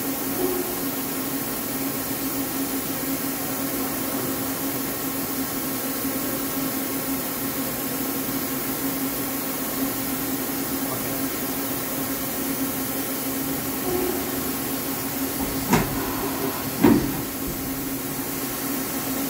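DMG Mori MillTap 700 tool changer at work: the 25-pocket tool magazine indexes round over a steady hum, with two sharp clunks about a second apart near the end.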